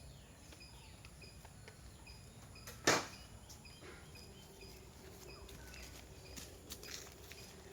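Quiet outdoor ambience with faint short high chirps repeating about twice a second, typical of a bird or insect, and one sharp click about three seconds in.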